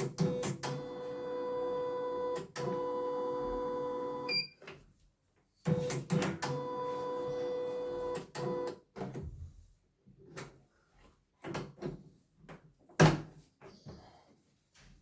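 CNY E900 computerized embroidery machine running its stitching motor in two bursts of about four and three seconds, a steady hum with a fast stitch rhythm, then a series of scattered clicks and knocks, the loudest one about thirteen seconds in.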